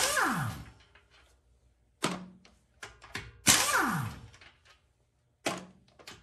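Aircat pneumatic impact wrench with a 20 mm socket, hammering lug bolts loose in two bursts. Each burst trails off in a falling whine as the tool spins down. Short clicks and knocks come in between.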